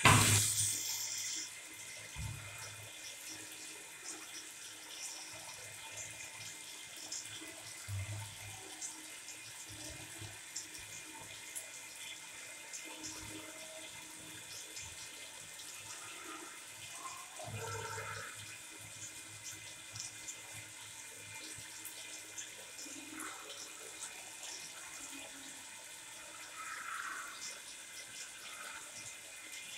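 Water running from a tap into a stainless steel sink basin and down the drain, a steady splashing hiss. It opens with a brief loud burst that dies away over about a second.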